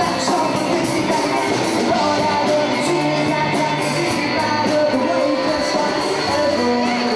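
Rock music with singing over a steady drum beat.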